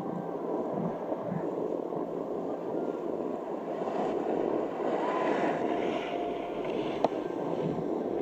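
Snowboard sliding over hard-packed groomed snow: a steady scraping hiss from the base and edges, with wind on the microphone. A single sharp click comes about seven seconds in.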